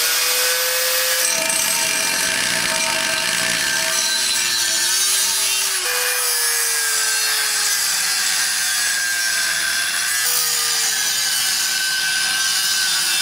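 Angle grinder with a thin cut-off disc cutting steel square tubing: a loud, steady motor whine over the hiss of the cut. The motor's pitch sags as the disc bites into the steel and jumps back up when the load eases, about three times.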